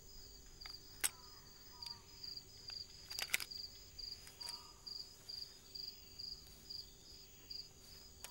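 Faint insect chirping, pulsing about twice a second over a steady high trill. A few sharp clicks cut through it, the loudest a quick cluster about three seconds in.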